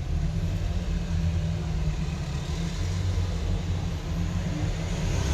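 A steady low rumble, with no clear strikes or clicks over it.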